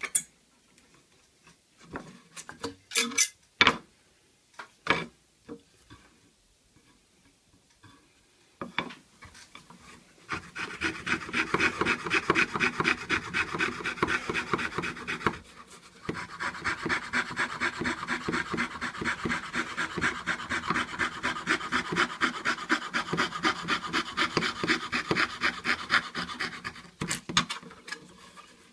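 Hand fret saw cutting through a block of wood with rapid, even strokes, starting about ten seconds in and pausing briefly once. Before that, a few separate knocks and clicks.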